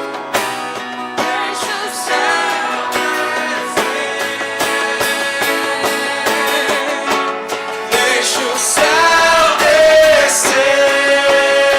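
Worship band music with strummed acoustic guitar and a bending melody line over it, getting louder about eight seconds in.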